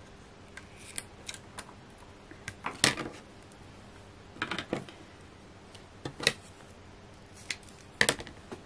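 Scattered light clicks and taps of card and crafting supplies being handled on a work table, at irregular intervals, the sharpest about three seconds in and near the end.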